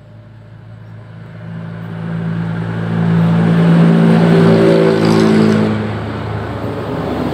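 A motor vehicle's engine hum that grows louder over the first few seconds, peaks about four seconds in, then eases off.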